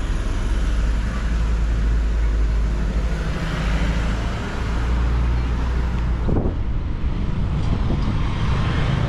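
Road traffic on a city street: cars passing with a steady low rumble of engines and tyres, and a brief sharp noise about six seconds in.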